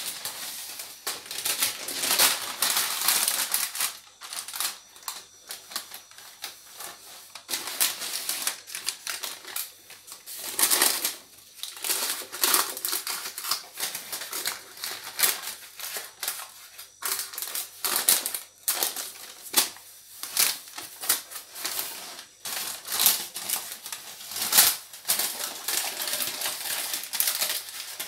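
Sheets of baking paper rustling and crinkling in quick, irregular bursts as they are handled and pressed down into a tart mould around shortcrust pastry.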